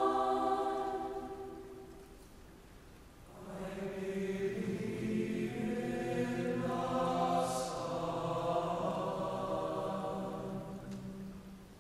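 Mixed chamber choir singing a slow choral piece: a held chord dies away, and after a short pause the low voices come back in about three and a half seconds in. The higher voices join a few seconds later, and the sound fades again near the end.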